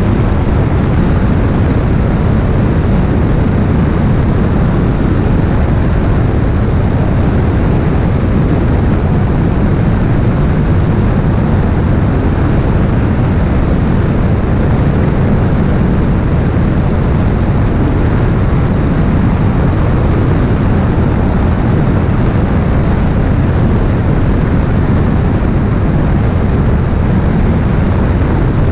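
Beechcraft Bonanza S35's six-cylinder Continental engine and propeller running at takeoff power as the airplane lifts off and climbs out, heard from under the wing as a loud, steady, deep rush of engine and airflow noise.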